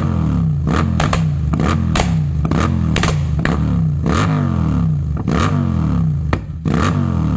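Royal Enfield 650 parallel-twin engine through an aftermarket Moto Torque exhaust, its throttle blipped over and over so the note rises and falls roughly once or twice a second. Sharp pops and cracks sound from the exhaust between revs.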